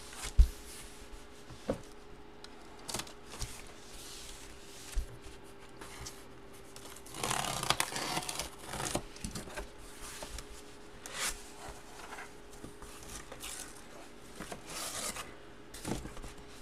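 Cardboard and paper packaging being handled and opened by hand: scraping, rustling and tearing, with scattered knocks and a sharp knock about half a second in. The longest stretch of rustling and tearing comes around the middle.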